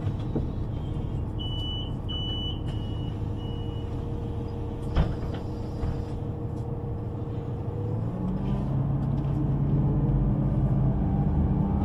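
Underground train rumbling at a standstill, with a few short high beeps early on, typical of a door-closing warning. About eight seconds in it starts to pull away, and a rising motor whine and a growing rumble come in.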